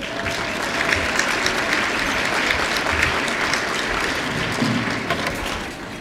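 Audience applauding, a dense patter of many hands clapping that thins out near the end.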